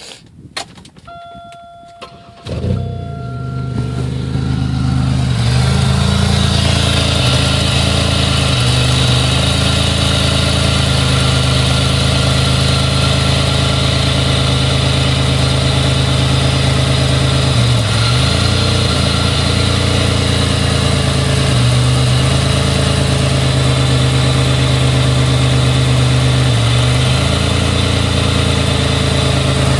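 Buick Regal GSE engine started slightly warm: a few clicks and a short electronic tone, then it catches about two and a half seconds in and settles into a steady idle. A few brief dips in the idle are typical of the slight misfire the owner describes, which he thinks may be a crank sensor.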